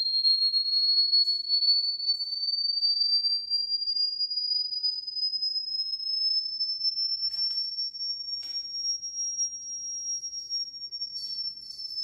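A single high-pitched pure tone held without a break, slowly rising in pitch and dipping slightly near the end, with a couple of faint clicks.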